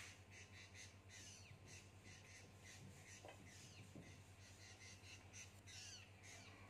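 Near silence with faint, repeated high bird chirps, several a second, some falling quickly in pitch.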